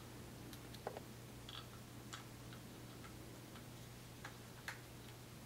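A few faint, scattered clicks and ticks of a small hex driver and metal parts being handled while screws are started into a fluid video head's top plate, over a steady low hum.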